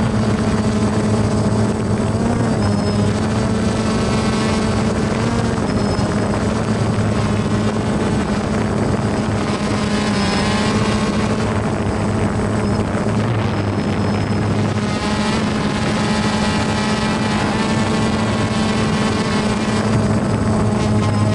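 Small remote-controlled drone's electric motors and propellers buzzing steadily while it flies, the pitch wavering slightly as it manoeuvres.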